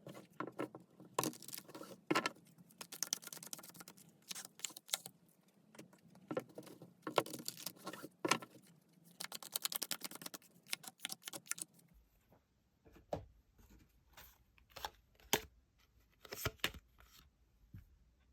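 Tarot cards being shuffled and handled: runs of quick rustling clicks. After an abrupt cut about twelve seconds in come a few separate snaps and taps of cards over a low hum.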